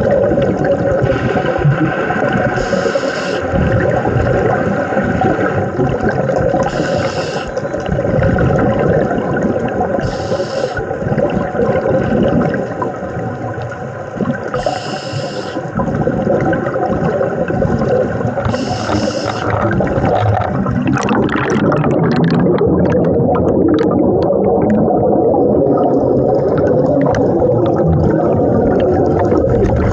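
Underwater sound of a scuba diver breathing through a regulator: a short hiss about every four seconds over the rush of exhaled bubbles, with a steady hum underneath. About twenty seconds in, the regular hisses stop and a crackling, bubbling rush takes over.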